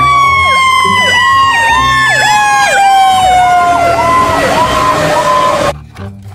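Fire truck sirens: one long wail slides slowly down in pitch while a second siren yelps in quick sweeps about twice a second. Both cut off abruptly near the end.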